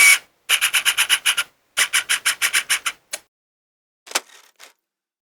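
Camera shutter clicking in rapid bursts: a run of about ten clicks in a second, a second run of about eight, then a few single clicks spaced out toward the end.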